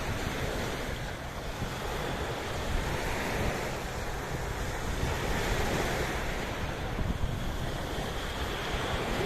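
Sea waves washing in steadily, swelling and easing every few seconds, with wind buffeting the microphone as a low rumble.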